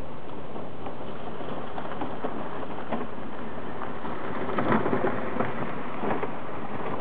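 Gravel crackling and crunching under the tyres of the robuCAR all-terrain robot as it drives past at speed. The crackling is loudest when the robot passes closest, about five seconds in, over a steady rushing background.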